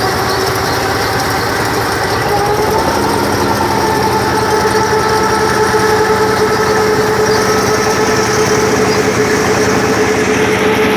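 Rice combine harvester running steadily, its engine and machinery giving a continuous hum whose pitch rises a little about three seconds in and then holds.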